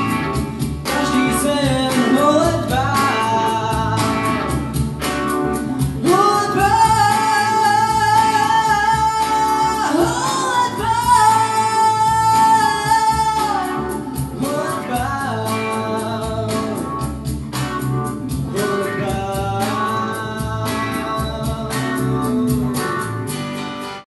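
Male solo vocalist singing a pop song over accompaniment with a steady beat, holding two long high notes in the middle. The music cuts off abruptly near the end.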